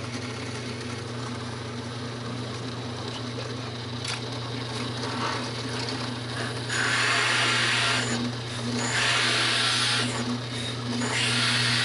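Drill press running with a 1-inch hole saw cutting into a plywood block, under a steady motor hum. About seven seconds in, the saw starts biting with louder rasping, three times, each lasting a second or so.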